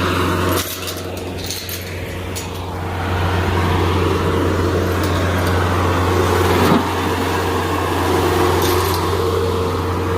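Engine running steadily at a constant speed, with a few clicks and rattles over it and a single sharp knock near the middle.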